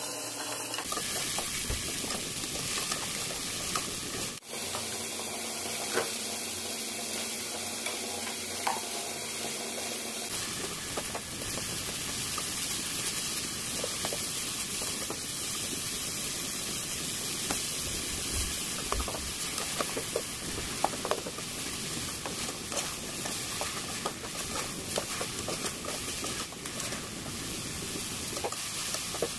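Diced tomatoes, onions and ground beef sizzling as they sauté in a non-stick pot, with a metal spoon stirring and scraping and scattered light clicks of the spoon against the pot.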